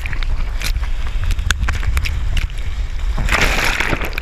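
Breaking surf washing over and around a camera held in the water: a heavy low rumble with crackling, splashing water, and a louder rush of water about three seconds in.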